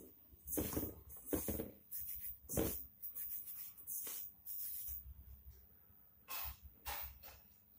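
Hands rubbing and crumbling oiled coarse whole wheat flour in a stainless steel bowl: irregular scrunching strokes, with skin and flour brushing against the metal.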